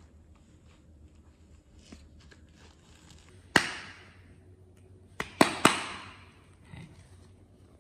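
Hands clapping sharply: one clap, then three more in quick succession about a second and a half later.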